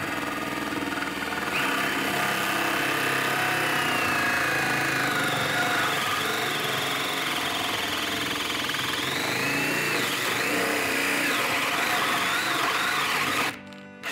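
DeWalt cordless drill running at full speed with a hole saw cutting slowly into plywood. The motor whine gets louder about a second and a half in and wavers as the teeth bite, then stops near the end.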